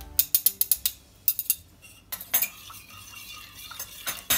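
Metal spoons clinking against each other and against a stainless steel pot while stirring liquid: a quick run of clinks over the first couple of seconds, then a few scattered ones, with the loudest clink near the end.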